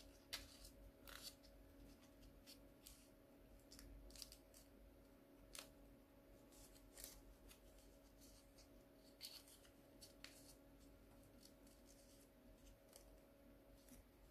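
Faint crinkling and crackling of a sheet of paper being folded and creased by hand, in irregular scattered crackles over a low steady hum.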